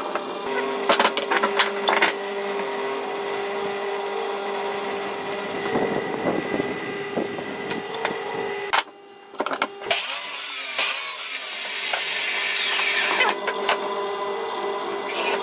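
Power saw running and cutting wood, with knocks of wood being handled. It breaks off briefly about nine seconds in, then a loud, hissing cut follows.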